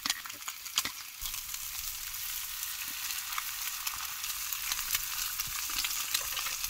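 Food frying in oil in a pan: a steady sizzle full of small crackles, with a few louder pops near the start.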